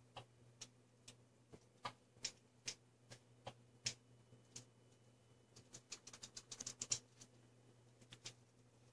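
Irregular light, sharp clicks and ticks, roughly two a second, with a quick flurry of them about two-thirds of the way in, over a faint steady low hum.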